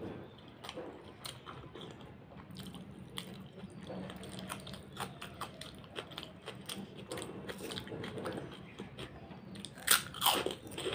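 Close-up chewing and wet mouth sounds of a person eating rice and chicken curry by hand: many small smacks and clicks, with a louder burst of biting and smacking near the end as another handful goes in.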